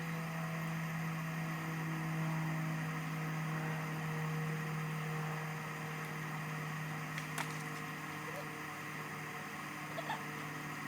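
A steady low hum with a few fainter tones above it, and two short faint clicks in the second half.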